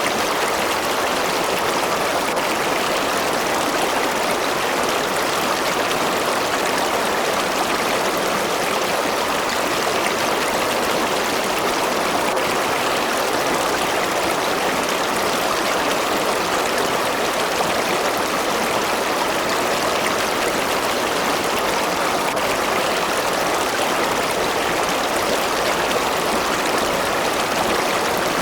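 River water flowing and rushing over rocks, a steady even rush with no change.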